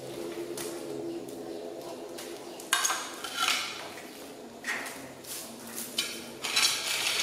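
Hard objects clattering and knocking together in a series of sharp clinks, like dishes: a plastic plate and baby feeding bottles being set down on a tile floor.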